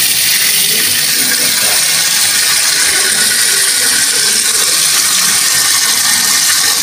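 Water from a pull-down kitchen faucet's spray head running steadily into a stainless steel sink, a constant hissing splash, as the water line is test-run.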